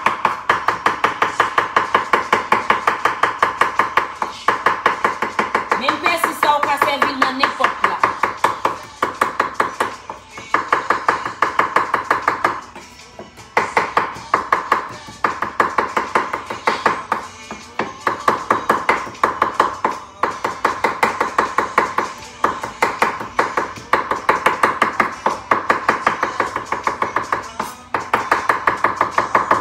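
Knife chopping fresh parsley on a cutting board, rapid even strokes about five or six a second in runs broken by short pauses.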